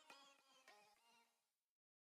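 Near silence: the faint, fading tail of background music, dropping to complete silence near the end.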